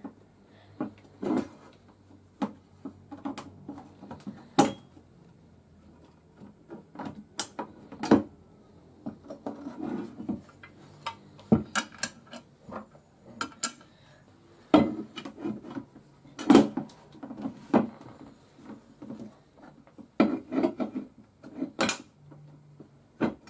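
Irregular clicks, knocks and clinks of chair parts being handled: a black plastic seat mechanism plate and its screws fitted against the underside of a hard white plastic chair seat shell.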